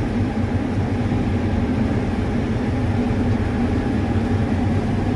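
Combine harvesting corn, its engine and threshing machinery running with a steady, unbroken low drone.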